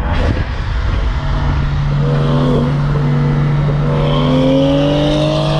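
BMW 335i's N55 turbocharged inline-six accelerating hard, its pitch climbing, dipping briefly about two and a half seconds in, then rising steadily again. A steady low drone runs beneath it.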